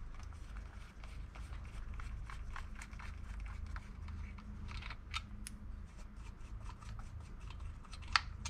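Faint small clicks and scrapes of metal bar nuts being spun off their studs by hand on an Echo CS-590 chainsaw's clutch cover. A sharper click comes near the end as the cover is gripped, over a steady low hum.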